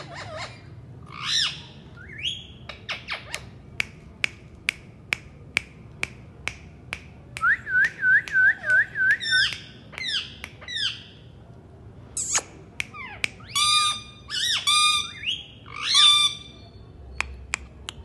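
Indian ringneck parakeets calling: a string of sharp clicks, a quick run of about six repeated whistled notes near the middle, and harsh squawks bunched in the second half.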